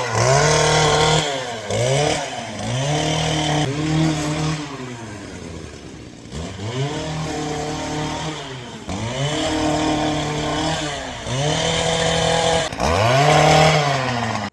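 Two-stroke chainsaw revved up again and again, its pitch climbing quickly and then sagging each time, about eight times, as it cuts small straggler limbs off a tree trunk.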